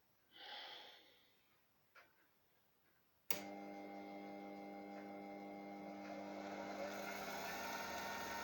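A sharpening machine built from an old drill press switched on with a click a little over three seconds in, its electric motor then running with a steady hum and whine. A soft rustle and a light click come before it, and a hiss builds up near the end.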